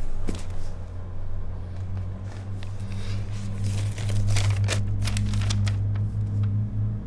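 Sheet of folded lined notebook paper rustling and crackling as it is handled and unfolded, in a cluster of short crisp rustles over a steady low hum.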